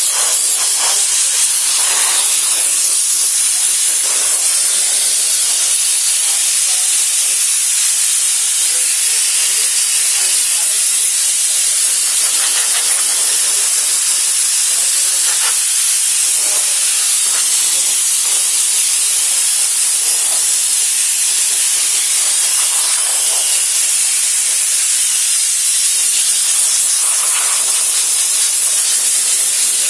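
Steady, loud, high-pitched hissing spray used to clean a thick coat of sawdust off a person.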